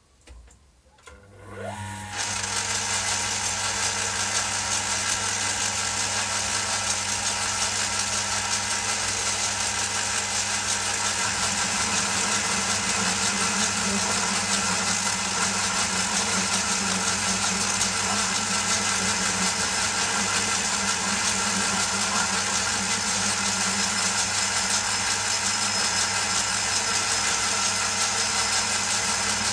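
An old lathe starting up: a knock as it is switched on, then the spindle and gearing spin up within about two seconds and run at a steady speed with a loud mechanical hum.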